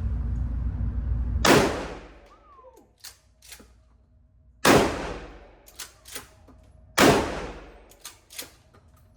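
Three 12-gauge Remington shotgun shots fired with birdshot, about two to three seconds apart, each ringing off under a ceiling. Fainter sharp clicks and knocks fall between the shots.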